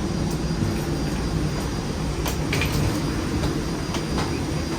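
Steady low rumble with a few sharp clicks and knocks scattered through it.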